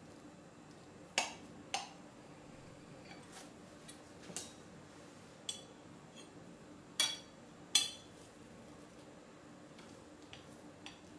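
A metal knife and then a metal cake server clinking against a ceramic cake plate as a cake is cut and a slice is lifted. There are about six sharp, ringing clinks, spread irregularly, and the two loudest come about two-thirds of the way through.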